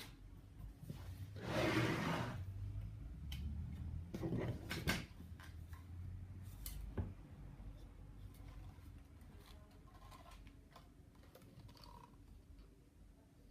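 Handling noises of hard objects: a brief rustling scrape, then a few sharp clicks and knocks, growing quieter and sparser towards the end.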